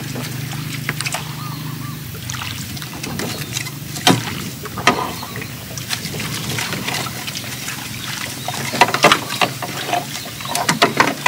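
Scattered knocks and rattles of a wire-mesh fish trap being handled and shaken in the bottom of a small boat, with a cluster of knocks near the end.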